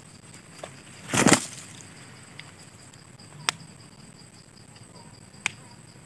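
A parrot's wings flapping in one short, loud rush about a second in as it comes to a nest hole in a termite mound, followed by two single sharp clicks. A steady high insect buzz runs underneath.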